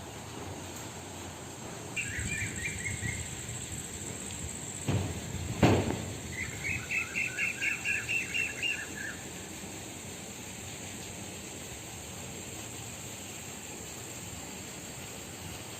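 A bird calling in two runs of quick repeated chirps, the second a string of about a dozen notes, over a steady high buzz of insects. Two sharp thumps come midway, the second the loudest sound.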